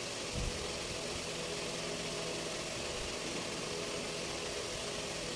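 Steady mechanical hum holding a few constant tones, with one brief low thump about half a second in.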